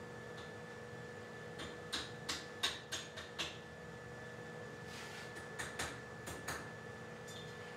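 Light hammer taps on a forged twisted heart of round steel bar held on a double round horn, truing its shape. The taps come in two short runs of quick strikes, over a faint steady hum.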